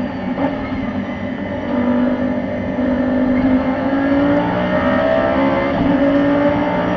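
Onboard sound of an Audi R8 race car's V10 engine, first slowing and changing down through the gears under braking, then accelerating hard out of the corner, its pitch rising from about two seconds in with an upshift a little past halfway.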